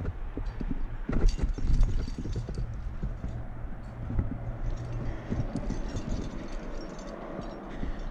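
A climber's hands and climbing shoes moving on the rock: an irregular run of knocks, taps and scrapes, heavier in the first couple of seconds, with lighter ticks in the second half.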